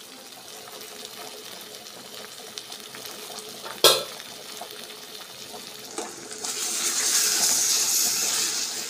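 Thick chicken gravy sizzling softly in a steel pan, with a sharp metal clink about four seconds in and a smaller one about two seconds later. Near the end the sizzling grows louder and hissier.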